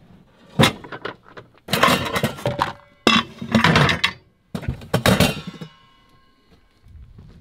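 Metal pots and pans clanking against each other and a plywood drawer as cookware is pulled out: one sharp knock, then three clattering bursts, the last leaving a short metallic ring.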